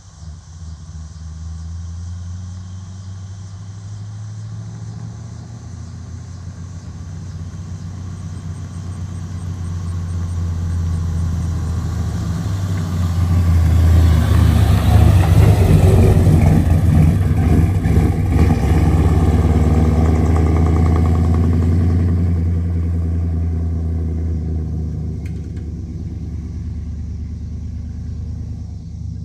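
1985 GMC K3500 pickup with a 502 big-block V8 driving by: a deep, steady engine note that grows louder as the truck approaches, is loudest about halfway through as it passes, then fades away.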